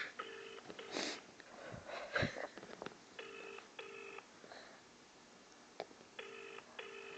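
Double-ring telephone ringback tone of an outgoing call, heard from a mobile phone: three cycles of two short rings, each pair about three seconds apart, while the call waits to be answered.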